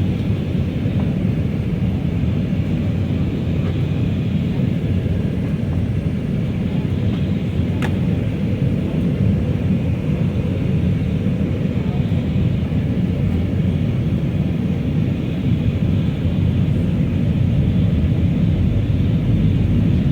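Steady low rumble of cabin noise inside an Airbus A319-114 airliner on the ground, from its engines and air system, growing slightly louder over the last few seconds, with one faint click about eight seconds in.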